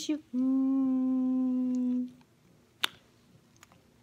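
A woman humming one steady, held "mmm" note for about two seconds, then a single sharp click about three seconds in.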